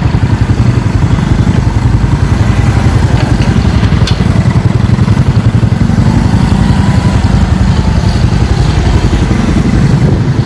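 Motorcycle engine running steadily while riding, a loud low rumble with no break.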